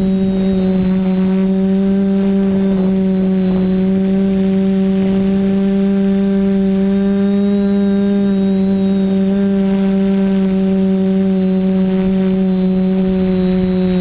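The TBS Discovery quadcopter's brushless motors (Sunnysky 2216 800kv) spinning 10x5 propellers, making a loud, steady buzzing hum that holds one even pitch throughout, with a faint high whine above it.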